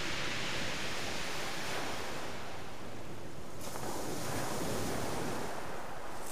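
Surf breaking and washing over a shingle beach: a steady hiss that eases about three and a half seconds in.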